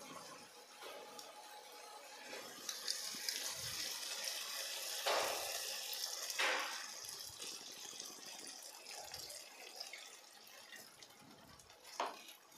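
Cornflour slurry poured in a thin stream into hot sauce in a non-stick kadai. It is a steady liquid pour with a hiss, from about three seconds in until about seven seconds, loudest near the middle.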